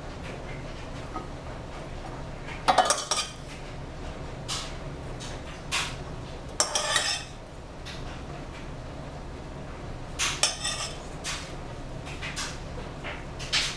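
A metal spoon clinking and scraping against a plate as salad is served onto it, in about seven separate bursts, the loudest about three seconds in.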